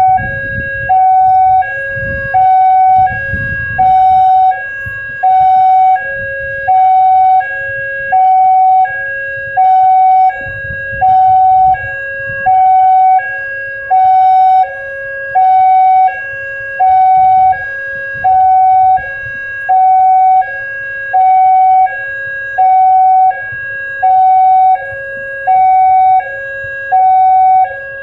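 Electronic warning siren of a railway level crossing, alternating steadily between a louder higher tone and a lower tone about once a second; the alarm that sounds while a train approaches the crossing. A low rumble runs underneath in the first few seconds and again about ten seconds in.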